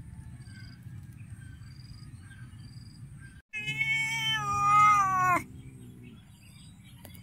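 A cat meowing once: a long drawn-out call of about two seconds, about three and a half seconds in, dropping in pitch at the end.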